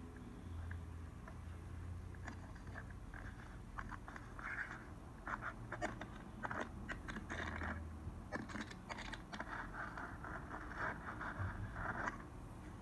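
Clothing, boots and body scraping and scuffing against rock, with small clicks and crunches of grit, as a caver crawls through a tight cave passage. The scuffs come irregularly and grow busier from about five seconds in.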